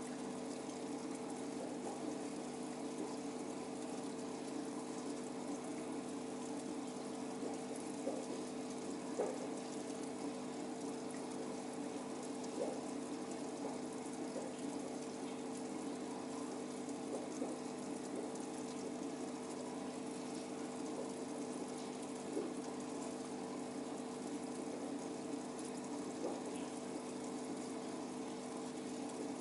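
Aquarium pump running with a steady hum over continuous water bubbling and splashing, with a few faint pops scattered through.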